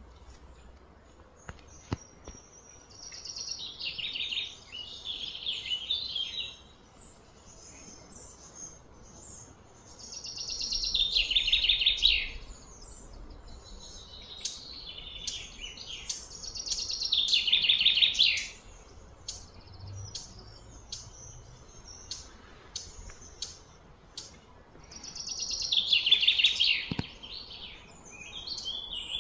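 A songbird singing: four long phrases of rapid high notes, each two to three seconds long and several seconds apart, with short scattered chirps in between.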